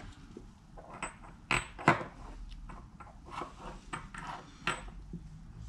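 Scattered light clicks and taps of a soldering iron and a metal connector plug being handled on a workbench, with two sharper knocks about one and a half and two seconds in.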